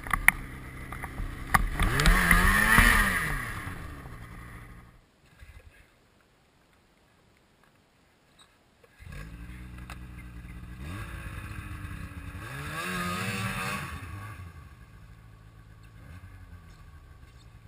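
Two-stroke engine of a 2007 Ski-Doo MXZ 600 snowmobile revving up hard and falling back, dying away about five seconds in, followed by a few seconds of near silence. A snowmobile engine then starts running again about nine seconds in, revs up once and drops back to a lower, steady run.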